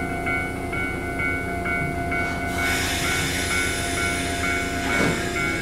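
Echizen Railway train at a station, with a two-note electronic warning tone repeating about twice a second over a steady hum. About halfway in, a loud hiss of air starts, and there is a brief thump near the end.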